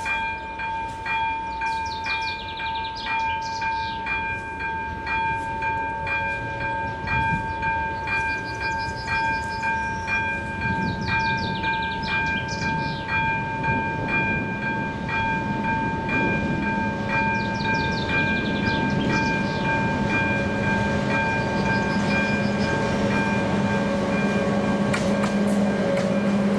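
A level-crossing warning bell rings in a steady, even repeating rhythm while birds chirp. From about halfway, the engine of an approaching diesel locomotive grows louder under the bell.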